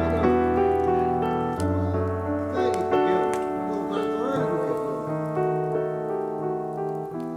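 Background piano music: slow, sustained chords that change every second or two.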